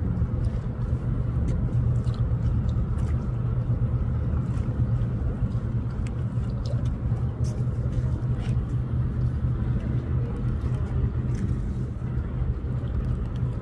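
Steady low rumble with a droning engine note from a large car ferry's engines as it passes.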